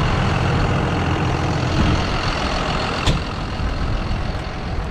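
Tractor diesel engine running steadily with a broad hiss over it, and a single sharp click about three seconds in.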